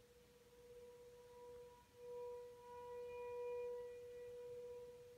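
American Signal T-128 tornado warning siren sounding a steady tone during a test, faint and far off. Its loudness swells about two seconds in and slowly fades again.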